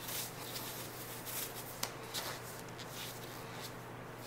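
Faint rustling of Stanley knit work gloves as they are pulled onto the hands and tugged into place, with a few small ticks, over a faint steady hum.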